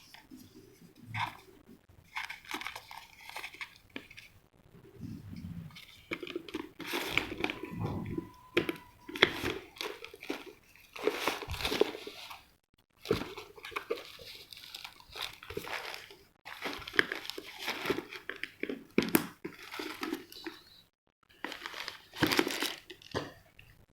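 Plastic packaging crinkling and rustling as it is handled, in irregular bursts with short pauses.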